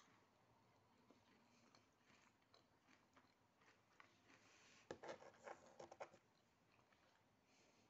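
Faint chewing of a small caramel cookie, with a short run of crisp crackling clicks about five seconds in.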